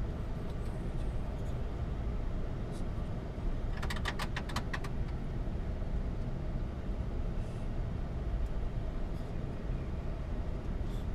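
Steady low rumble of a Boeing 747-8 flight deck while taxiing, with engines at idle. About four seconds in comes a quick run of about seven clicks.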